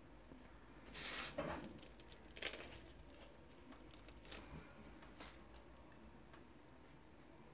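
Cherry tomatoes being handled and pushed onto toothpicks in a foil-wrapped form: a few short rustles and crinkles with light clicks, the loudest about a second in.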